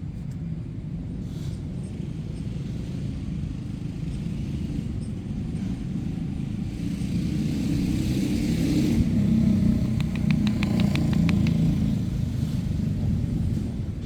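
Low rumble of street traffic, with a motorbike engine growing louder in the middle and easing off near the end. A quick run of sharp clicks comes about ten seconds in.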